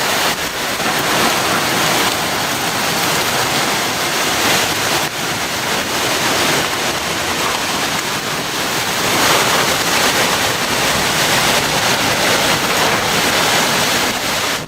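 Hurricane wind with driving rain near the storm's eyewall: a loud, steady rushing noise with no let-up.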